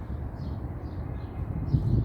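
Low rumble on the microphone, swelling briefly near the end, with a series of faint high chirps above it.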